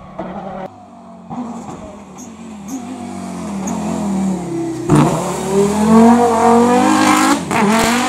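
Race car engine accelerating hard out of a hairpin and up through the gears as the car passes close. The note rises steadily, a sharp crack comes about five seconds in, and the pitch drops and climbs again at a gear change near the end.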